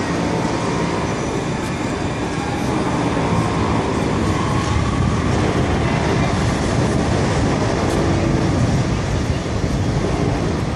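Alstom RegioCitadis tram pulling away along an elevated track, a steady run of wheel and motor noise with a faint whine in the first few seconds.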